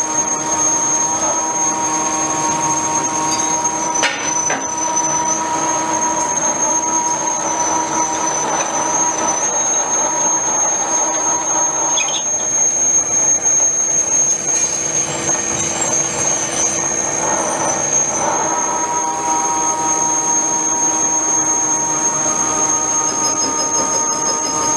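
Pillar drill running and its bit cutting through a steel flange, a steady high-pitched squeal over the motor's hum, with a couple of short knocks partway through.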